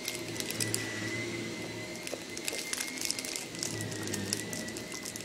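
Clear plastic candy wrapper from a roll of Smarties crinkling and crackling in the fingers as it is handled at the mouth, in irregular bursts of small crackles, over a faint steady high-pitched whine.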